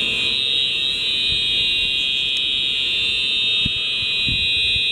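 Hotel fire alarm sounding a loud, continuous high-pitched tone; it was triggered by a pulled alarm switch, a false alarm.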